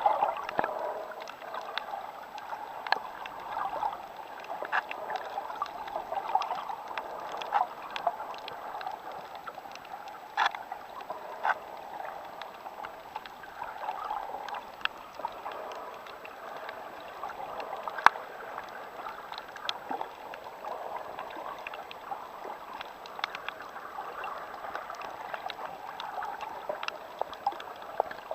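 Underwater reef ambience recorded through a camera: a steady, muffled wash of water, with scattered sharp clicks and crackles at irregular moments and one stronger click about eighteen seconds in.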